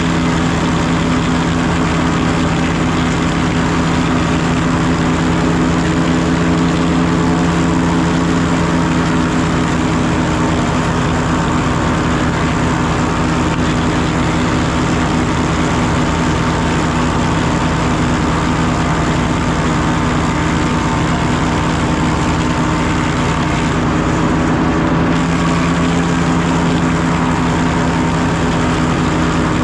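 Super W-6 tractor engine running steadily, belt-driving an S.A. Woods wood planer from about 1890; engine and planer run together at an even speed with no change.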